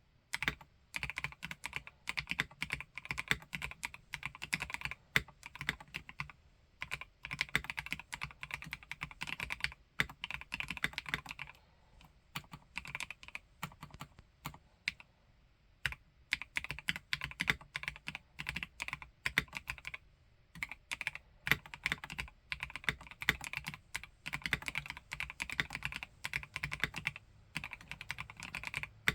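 Typing on an Omnitype BAUER LITE 65% mechanical keyboard with a plastic case and Gateron Snow Rabbit switches: quick runs of keystrokes, broken by a few short pauses and one longer one near the middle.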